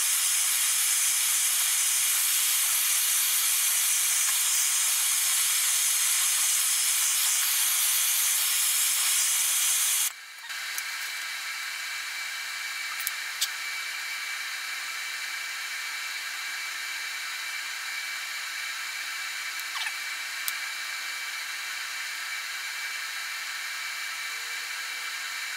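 Handheld gas torch flame hissing steadily as it preheats a steel pitman arm, cutting off about ten seconds in. A TIG welding arc follows, a quieter steady hiss with a few small clicks, welding a tapered tie-rod-end insert into the arm.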